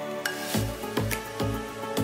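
Background music: sustained chords, with a low beat coming in about half a second in and repeating a little over twice a second, along with crisp high ticks.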